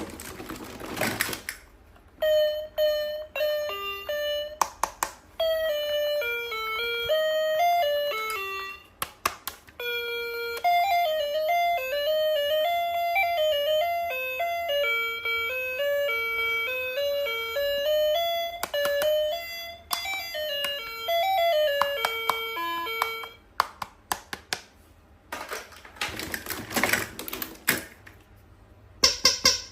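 A battery-powered musical toy plays a simple electronic tune of beeping notes for about twenty seconds, then stops. It is preceded by a few clicks and followed near the end by a rustle of handling.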